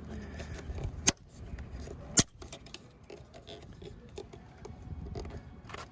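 Snap-on door striker cover being pressed onto a Mustang's door striker: two sharp clicks about a second apart as it snaps into place, amid light handling clicks.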